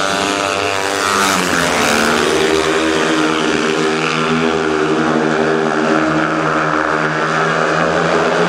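Speedway motorcycles racing, their 500 cc single-cylinder engines running at high revs, with the engine note bending in pitch about a second in and then holding steady.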